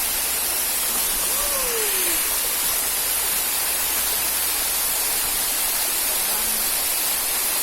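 Steady rushing hiss of water pouring down a waterfall, unbroken throughout.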